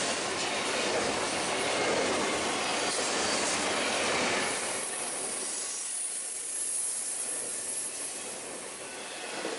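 Train cars rolling past on the rails, loud for about the first four and a half seconds and then dropping off as the train goes by.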